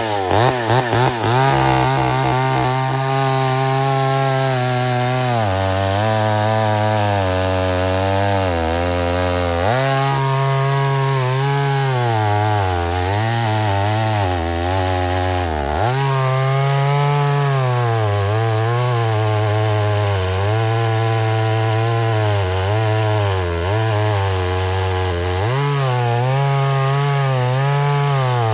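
Homelite Super XL-923 82cc two-stroke chainsaw running at high revs while cutting wood. The engine's pitch sags under load and picks back up several times, about every few seconds, as the chain bites and frees in the cut.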